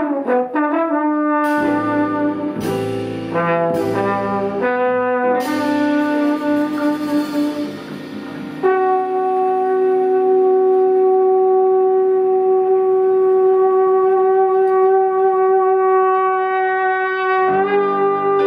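Trombone playing a jazz line over a quartet, with loud crashing hits from the band in the first half, then holding one long note for about nine seconds before new notes come in near the end.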